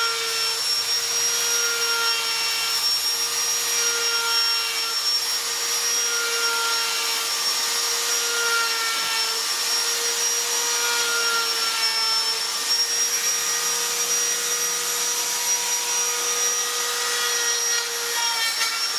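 Hand-held electric rotary carving tool running steadily with a high whine while its bit grinds into wood.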